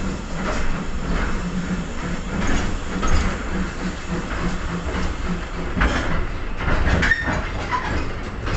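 A small steam train running, heard from inside an open carriage: the carriage rattles and the wheels clatter on the rails with a regular beat, a little under two strokes a second. A brief wheel squeal comes about seven seconds in.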